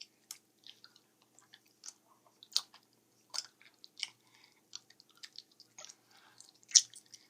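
Chewing a ginger caramel hard candy: scattered small wet mouth clicks and crunches.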